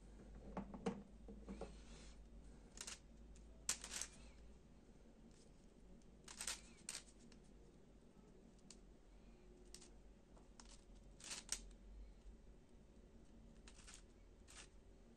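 Plastic pieces of a flat 3D-printed PETG twisty puzzle clicking and scraping as its interlocking circles are turned by hand. The clicks are short and irregular, some in quick clusters, with quiet between them.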